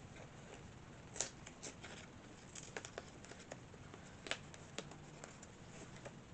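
Faint handling noises from a mail package being opened by hand: scattered small clicks and rustles, the sharpest about a second in and again just past four seconds.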